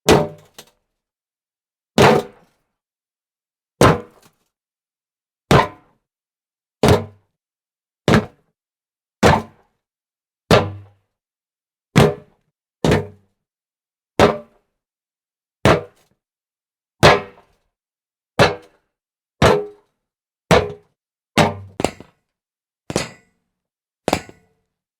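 A string of about twenty separate jump-landing thuds, each a short impact with a brief tail, set apart by silence and coming every second or two, closer together toward the end.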